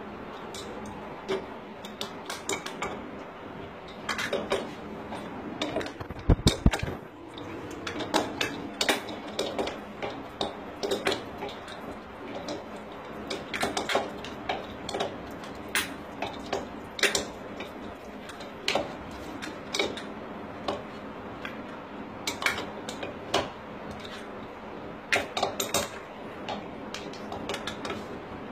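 Irregular metallic clinks, taps and scrapes of a hand tool working on the metal fittings of a wall-mounted mixer tap, with a few louder knocks about six seconds in.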